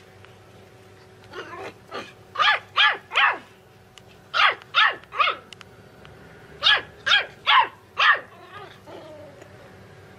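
Small puppy yapping: a few softer yaps, then sharp high-pitched yaps in three quick groups of three, three and four.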